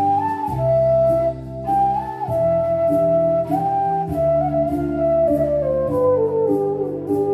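Flute playing a folk melody with slides between notes, the line stepping downward near the end, over low accompaniment notes that change every couple of seconds.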